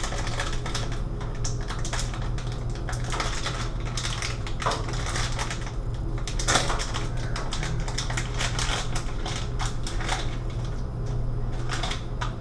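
Irregular clicks, taps and scrapes as hands work at the plastic box of a recessed medicine cabinet, over a steady low hum.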